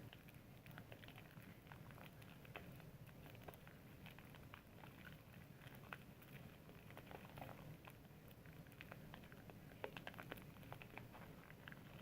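Faint wet squishing and crackling of soap being lathered, a scatter of small irregular clicks over a low steady hum.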